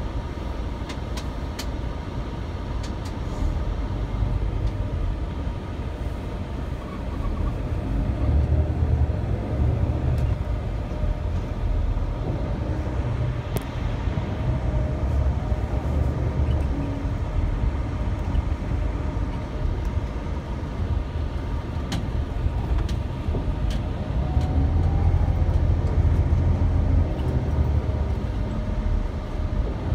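Inside an intercity motor coach: the low rumble of its diesel engine and running gear as it pulls away and drives through city streets, swelling about eight seconds in and again about twenty-four seconds in, with a few faint rattles.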